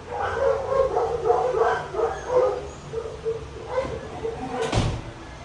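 Dogs barking and yapping repeatedly in short quick barks, several a second, with a single sharp knock near the end.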